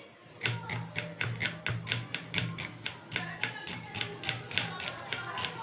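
A kitchen knife slicing an onion on a wooden cutting board: quick taps of the blade against the board, about four a second, beginning about half a second in.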